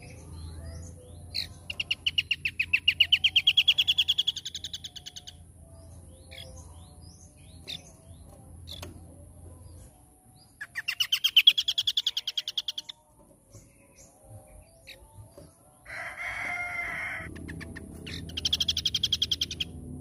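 Scaly-crowned babbler (asi topi sisik) singing three rapid trills of fast repeated high notes; the first trill rises in pitch as it goes. Between the second and third trills comes a short harsh, scratchy burst.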